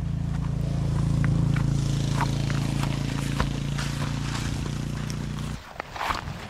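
An engine running at a steady speed, a low even hum with light clicks and crackle over it, which stops suddenly about five and a half seconds in.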